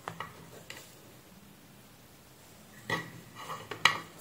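Light clicks and knocks of a small ferrite transformer and tools being handled and set down on a workbench: two soft taps near the start, then a cluster of sharper clicks in the last second and a half.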